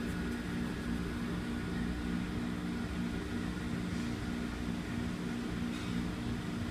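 Steady low mechanical hum with an even pulse, typical of an indoor shooting range's ventilation system running; no shots are fired.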